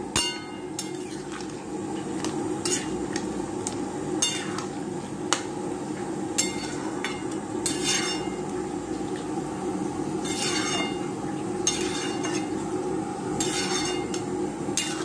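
Metal spoon clinking against a steel cooking pot about ten times, every second or two, as fried fish pieces are put into a boiling potato gravy, with a steady bubbling underneath.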